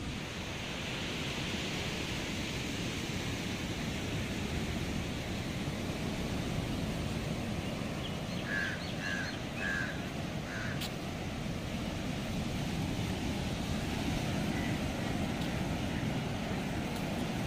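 Steady sea surf with wind, a continuous rushing noise. About halfway through, a bird gives four short calls in quick succession.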